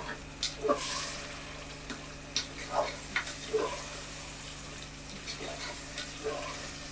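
Ground tomato purée going into a pan of frying onions, sizzling, with a brighter burst of sizzle about a second in and a few light knocks of a spoon against the pan.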